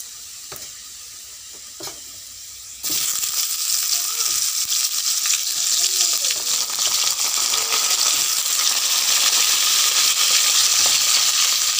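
Chunks of potato and ridge gourd going into hot mustard oil in a kadai. A couple of light clicks come first, then about three seconds in a loud sizzle starts suddenly and keeps going steadily.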